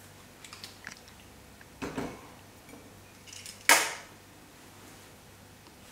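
A few light clicks and a duller knock, then one sharp, loud knock a little under four seconds in, like objects being handled and set down in a small room.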